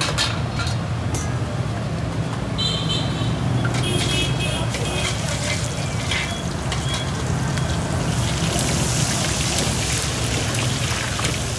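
Metal tongs clicking against stainless-steel bowls and a foam takeaway box as fried chicken skin is picked out, over a steady low hum. A hiss like oil sizzling in a wok rises about eight seconds in.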